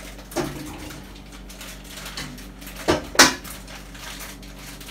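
Kitchen tap running into the sink while a metal strainer is rinsed, with a few knocks of kitchenware against the sink. The loudest is a pair of sharp clanks about three seconds in.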